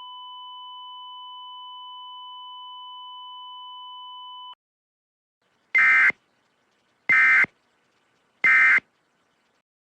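Emergency Alert System tones: a steady electronic tone that cuts off about four and a half seconds in, then three short buzzing data bursts about a second and a half apart, the end-of-message bursts that close an EAS alert.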